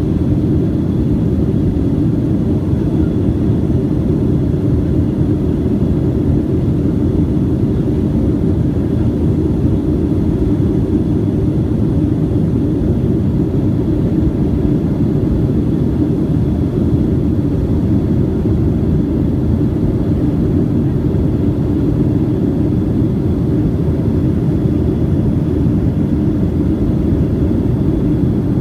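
Steady engine and rushing-air drone heard inside the cabin of a passenger airliner in flight, a low, even roar with a faint high whine on top.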